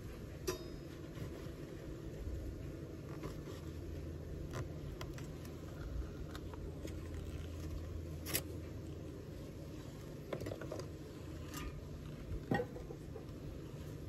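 Wooden Layens hive frames knocking and scraping as they are pushed back together, a scatter of sharp clicks over the steady low hum of the bee colony.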